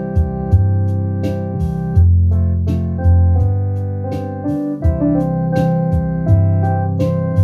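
Two-manual home electronic organ played with both hands: chords struck roughly once a second, each starting sharply and fading, over held bass notes.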